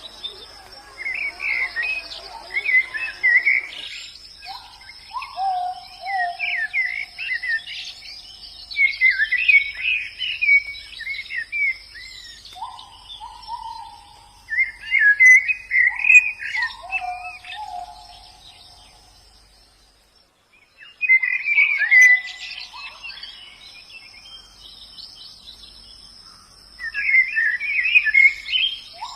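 White-eyes (pleci) singing: repeated bursts of quick, twittering chirps alternating with lower, drawn-out whistled notes, with a brief lull a little past the middle. A steady high-pitched tone runs underneath.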